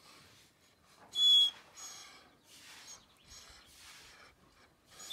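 Dog whining: one short, high-pitched whine about a second in, followed by quieter, evenly spaced breaths.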